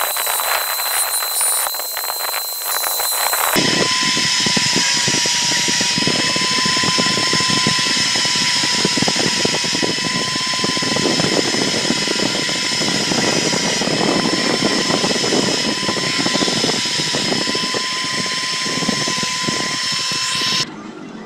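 Small electric motor spinning a wooden wheel on a bolt mandrel with a steady whine, while a steel file held against the turning wood scrapes grooves into its tread. The sound changes abruptly about three and a half seconds in, to a denser scraping under a lower whine, and drops away shortly before the end.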